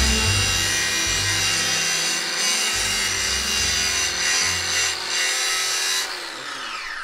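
Angle grinder running with a dense, high whine, then switched off about six seconds in and spinning down with a falling whine.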